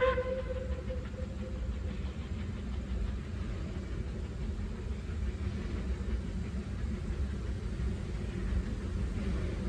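Narrow-gauge steam locomotive approaching. Its steam whistle holds one note at the start and dies away within about two seconds, over a steady low rumble.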